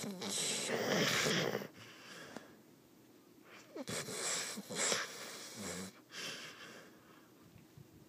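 Hungarian Vizsla snoring: two long snoring breaths, each lasting about two seconds, roughly four seconds apart, with faint breathing between them.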